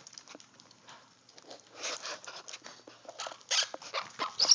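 Baby green-cheeked conures scrabbling and shuffling over one another and pecking at fruit: a run of scratchy clicks and short rustling bursts, a few louder ones near the middle and end.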